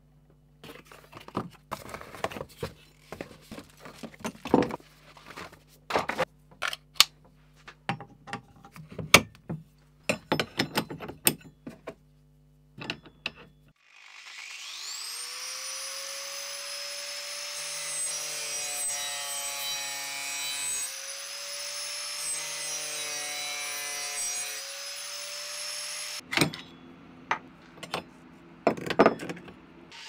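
A run of sharp clicks and knocks, then an angle grinder spins up with a rising whine about halfway through. It runs with its pitch wavering and dipping as the disc grinds into the wooden bass neck, then stops, and a few more knocks follow near the end.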